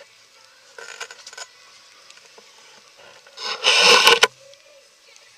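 Handling noise from a waterproof sailing jacket brushing and knocking against the camera: a light clattering rustle about a second in, then a louder, rougher scrape lasting about a second near the end.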